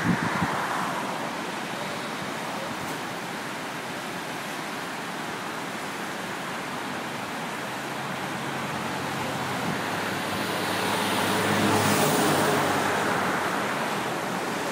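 Steady rushing of the Connecticut River in flood, fast water pouring under the bridge and over the dam. A road vehicle passes, loudest about twelve seconds in.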